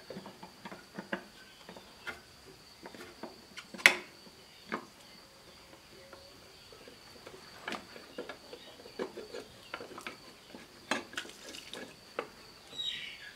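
Scattered clicks and knocks of a metal spin-on diesel fuel filter canister (CAV-296) being gripped and unscrewed by hand, knocking against the filter head and nearby engine parts, the sharpest knock about four seconds in. A steady high insect drone runs underneath.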